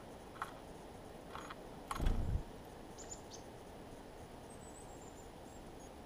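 A black-capped chickadee at a seed-covered wooden bird table: a few light taps, a dull thump about two seconds in, and then short, thin, very high calls, a quick cluster around three seconds and a faint run of slightly falling notes in the second half.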